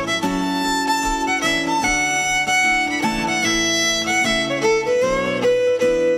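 Irish traditional fiddle playing a lively dance tune, a schottische, with guitar chords underneath.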